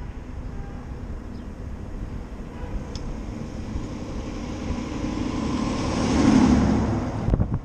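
Wind and traffic noise from riding an electric moped in city traffic, with a fire engine passing close by in the opposite lane: its noise swells to a peak about six seconds in. The sound drops off abruptly just before the end.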